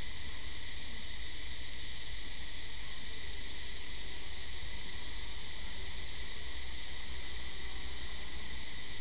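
Steady high-pitched insect chorus, with a soft pulse repeating about once a second over a low rumble.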